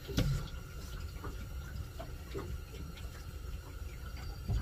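Water splashing and trickling over a steady low rumble, with scattered light knocks and a thump about a quarter second in and another near the end.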